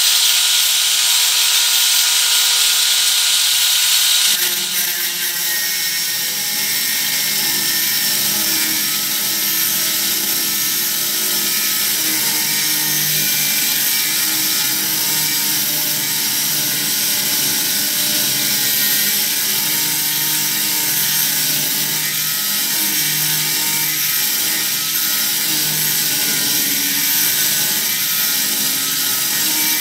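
Corded electric angle grinder. For about four seconds it spins freely with a steady high whine, then its disc bites into the steel rail, and for the rest of the time the motor note drops and wavers under load with a gritty hiss of metal grinding. Near the end it lifts off and the whine rises again.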